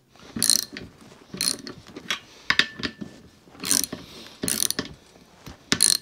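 Socket ratchet tightening the nuts that hold a diesel heater's mounting plate on its studs: about six short bursts of ratchet clicking, roughly a second apart.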